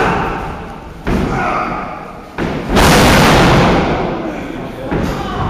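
Wrestlers' bodies hitting the wrestling ring's mat: a few sudden heavy thuds, the loudest about three seconds in, when a wrestler is slammed down, followed by about a second of rumble from the ring.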